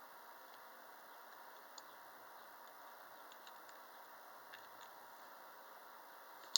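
Faint scattered small clicks and ticks from the rifle scope being handled, over a steady faint hiss, with one sharper click at the very end.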